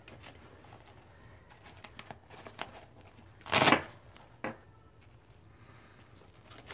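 Nylon tactical EMT pouch being handled and closed up: light fabric rustling, a short loud rasp about three and a half seconds in, and a smaller one a second later.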